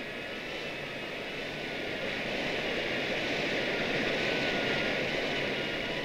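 A rushing noise that swells up and then eases off near the end, with faint steady high tones held underneath.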